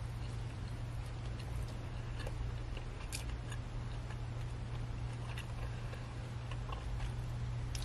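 Steady low hum of a car interior, with faint scattered clicks from eating and handling food.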